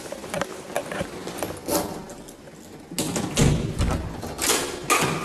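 Scattered thuds and clicks of handling, then a low rumble about three and a half seconds in as a wheeled suitcase is moved at a room door.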